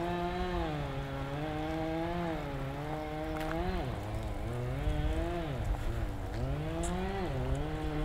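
A small engine running steadily at high speed, its pitch dipping and recovering several times: briefly near the middle, and twice more in the second half.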